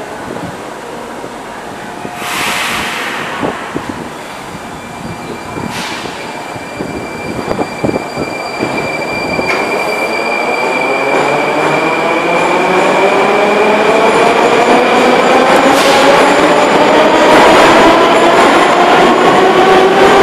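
Metro train pulling out of the station and accelerating along the platform: a short hiss about two seconds in, then its traction motors whine, several tones rising steadily in pitch as it gathers speed and the sound grows louder.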